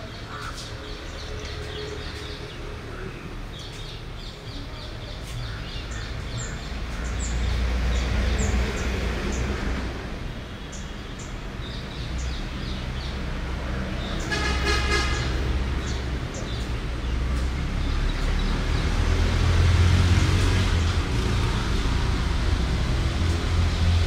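Road traffic passing with a low rumble that swells through the second half. About fourteen seconds in, a vehicle horn toots once for about a second.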